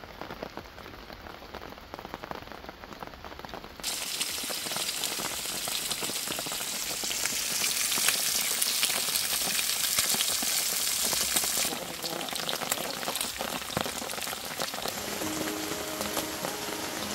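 Steady rain falling. About four seconds in it cuts to meat sizzling loudly in a frying pan, a bright hiss. About twelve seconds in it cuts back to steady rain, heard from inside a tent.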